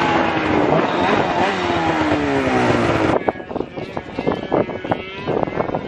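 Snowmobile engines running, several of them dropping in pitch over the first three seconds. After a sudden change about three seconds in, a Polaris race snowmobile's two-stroke engine idles close by with an uneven, popping beat.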